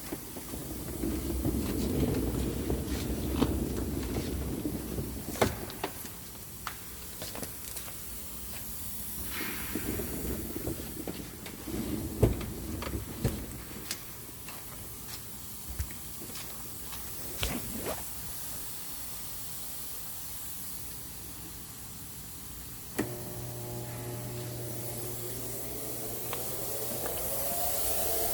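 Scattered knocks and clatter of handling, then about two thirds of the way in a sharp click as a homemade cyclone vacuum cleaner's motor switches on: a steady low hum with a whine that rises in pitch as the motor spins up.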